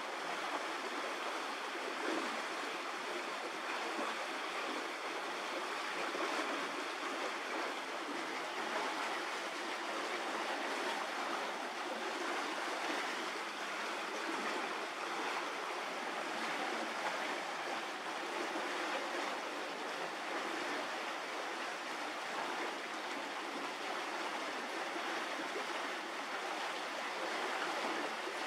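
A steady, even rushing noise that does not change, with no separate knocks or calls in it.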